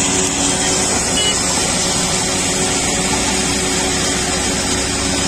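Self-propelled chip spreader running as it lays stone chips: a steady engine drone under a continuous hiss.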